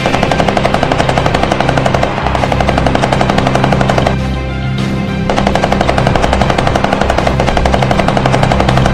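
Background music with a rapid, even rattle of shots, about ten a second, breaking off for about a second midway.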